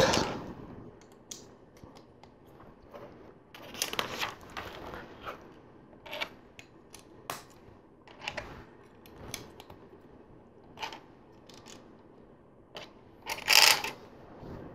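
Plastic LEGO bricks clicking and clattering as pieces are handled, picked from a loose pile and pressed onto a model, with a longer, louder clatter near the end.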